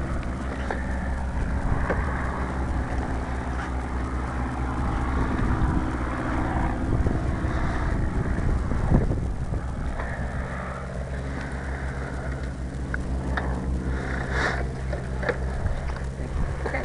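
Motorcycle engine idling steadily, with wind noise on the helmet-mounted microphone and a few faint clicks in the last few seconds.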